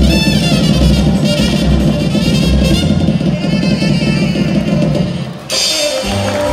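Circus show music with a fast, sustained drum roll that stops suddenly about five and a half seconds in on a crash. The band music then starts again: a drum roll building to the finish of a juggling trick.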